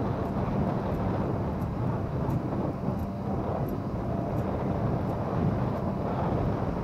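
Vehicle driving, heard from inside the cabin: a steady low engine and road rumble with no pauses. Faint high ticks come about once every 0.7 seconds.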